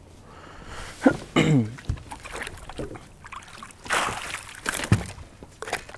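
Water splashing as a hooked northern pike thrashes beside the boat and is scooped out in a landing net, the loudest splash about four seconds in. A man makes short wordless vocal sounds about a second in.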